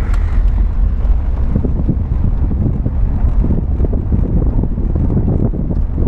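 Car driving, a heavy low rumble with wind buffeting the microphone and irregular knocks from the road.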